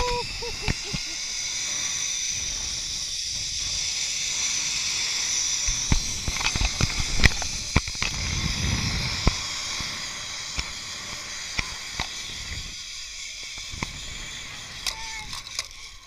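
Zip line trolley pulleys running along the steel cable, a steady hiss that builds over the first few seconds and fades as the rider slows toward the landing platform. Scattered clicks come around the middle of the run, with wind rumble on the handheld camera.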